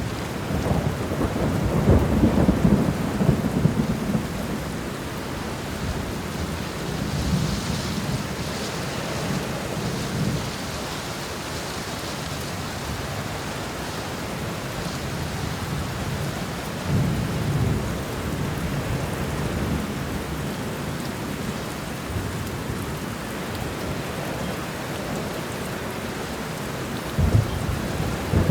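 Thunderstorm: steady heavy rain with rolling thunder rumbling several times, loudest in the first few seconds, and a sharper crack near the end.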